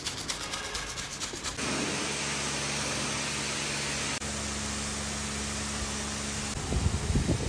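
A soft detailing brush scrubbing soapy chrome in quick strokes. About a second and a half in, a pressure washer starts spraying a steady hissing jet of water, with its motor humming underneath. Near the end there is louder, irregular low rumbling.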